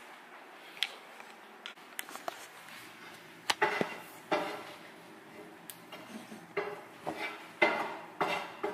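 Kitchen clatter: a pan and utensils being handled at the stove, in irregular bursts that grow louder about three and a half seconds in. Scattered sharp clicks and knocks come first as the phone is handled and set down on the counter.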